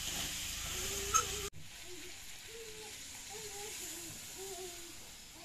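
Curry sizzling in a metal pan over a clay stove as it is stirred with a ladle, with a single metal clink about a second in. The sizzle cuts off abruptly after about a second and a half, leaving only faint, repeated animal-like calls.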